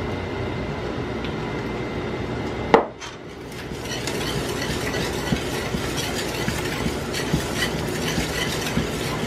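A kitchen utensil stirring in a pot of gravy on the stove, with light scraping and frequent small clicks against the pot, after a single sharp knock about three seconds in.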